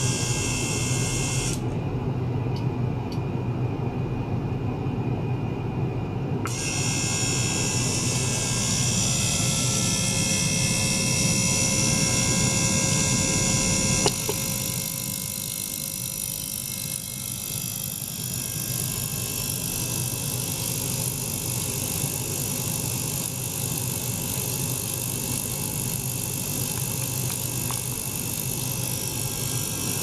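A small ultrasonic cleaner running with its liquid-circulation pump: a steady mechanical hum and hiss with several steady tones. About 14 seconds in there is a click, after which the sound gets quieter and changes character.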